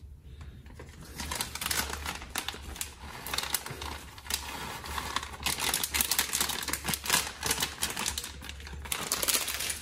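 Plastic bag of shredded cheddar crinkling and rustling as the cheese is shaken out of it into a pot: a dense run of small crackles that picks up after about a second.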